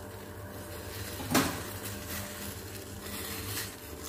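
Pot of boiling water bubbling with spinach blanching in it, over a steady low hum; one short knock about a second and a half in.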